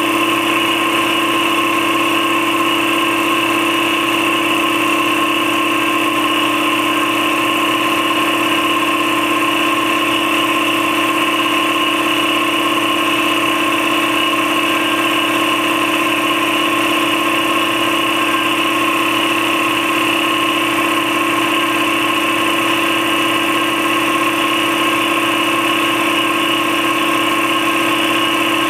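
Campbell Hausfeld 60-gallon twin-piston air compressor with an electric motor, running steadily with an unchanging pitch. It is pumping up its tank late in a fill from empty, with the tank at high pressure and still short of its 135 psi shutoff.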